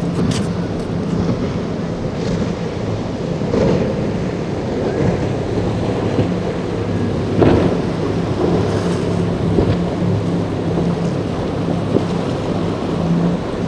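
SACS rigid-inflatable powerboat running at speed through rough water: a steady engine drone under loud rushing of water, spray and wind. A few louder splashes break through, the biggest about seven and a half seconds in.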